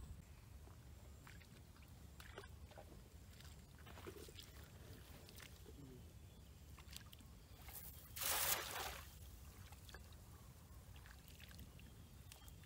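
Small sloshes and splashes of someone wading through shallow muddy water. About eight seconds in, a cast net lands on the water with one loud splash lasting under a second.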